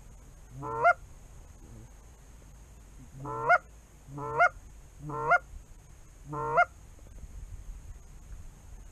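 Five loud Canada goose honks, each rising in pitch and breaking sharply at the top: one about a second in, then four more in a row about a second apart.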